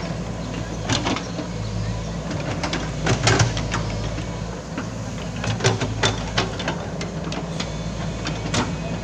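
Foton crawler excavator's diesel engine running steadily while it digs and scrapes soil, with sharp knocks and clanks from the bucket and tracks every second or two.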